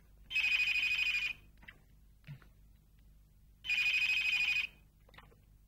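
Telephone bell ringing twice, each ring about a second long with a fast warble.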